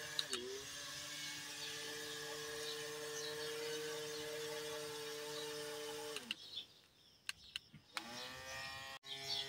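Small electric motor of a handmade wooden RC boat whining steadily, its pitch dipping briefly just after the start. About six seconds in it winds down and stops, with a few clicks, then spins back up near the end.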